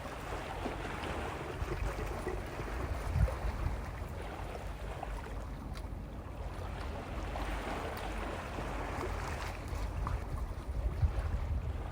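Sea waves washing over a rocky shore: a continuous rush of water that swells and eases, with two short low thumps, about three seconds in and near the end.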